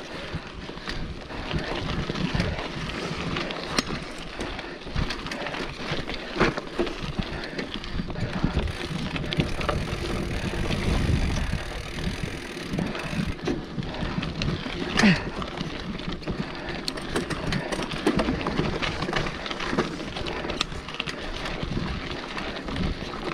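Mountain bike descending a dirt forest singletrack: tyres rumbling over the trail with the bike rattling and knocking over bumps, and wind buffeting the microphone. Two sharp knocks stand out, one about six seconds in and one about fifteen seconds in.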